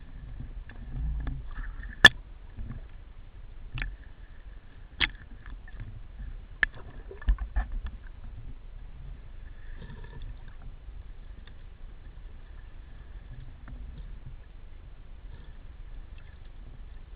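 Water sounds recorded underwater beside a swimmer finning at the surface: a low rumble of moving water with a faint steady high whine, broken by about six sharp clicks and knocks in the first half, the loudest about two seconds in.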